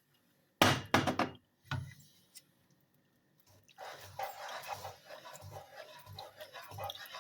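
A few sharp knocks of utensils on the pan, then about halfway in a steady sizzle with the rhythmic scrape and thud of a spatula stirring gochujang paste and dark soy sauce in hot oil in a frying pan.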